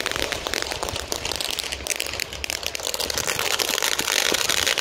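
Ground fountain firework spraying sparks with a dense, rapid crackle that grows louder and hissier about three seconds in.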